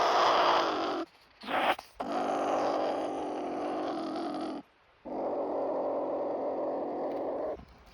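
A trapped pine marten growling in a long harsh series, agitated and angry: a growl, a short one, then two long growls of two to three seconds each, broken by brief pauses.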